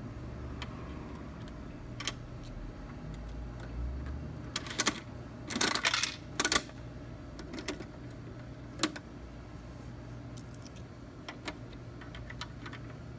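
Mechanical clicking and clattering from a coin-operated toy vending machine being worked, loudest in a short run of rattles about five to six and a half seconds in and a single click a little later, over a steady low hum.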